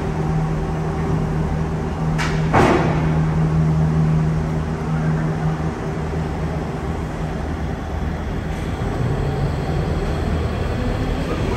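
EMD GP38-2 diesel locomotive's 16-cylinder two-stroke engine running at low throttle as the unit moves slowly, a steady low hum. Two sharp knocks come about two seconds in.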